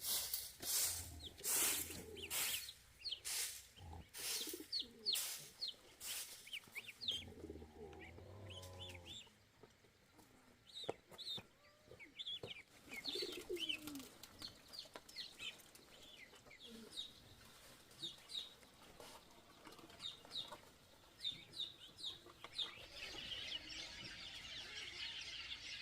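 Chickens clucking among many small birds chirping. A steady run of sharp knocks, a little under one a second, fills the first six seconds.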